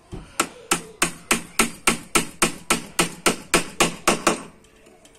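Hammer striking a wooden boat plank in a steady run of about fifteen quick blows, roughly three a second, which stops near the end.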